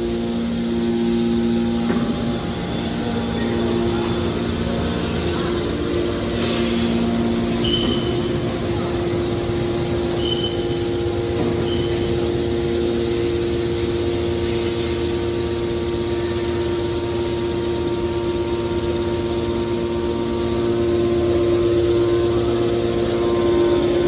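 A hydraulic scrap metal baler's power unit, electric motors driving hydraulic pumps, running with a steady machine hum. A lower tone drops in and out, and there are a few short high chirps around the middle.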